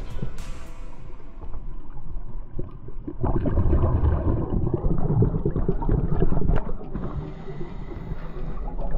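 Scuba regulator exhalation heard underwater: a loud burst of bubbles gurgling for about three and a half seconds, starting about three seconds in.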